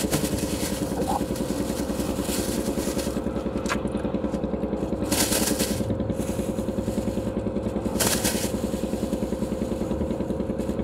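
An engine running steadily with an even, rapid pulsing beat. Short bursts of hissing noise come about two, five and eight seconds in.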